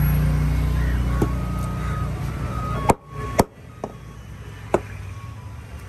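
A cleaver chopping fish on a cutting block: about five sharp, irregular strikes. A low engine hum underneath drops away about three seconds in.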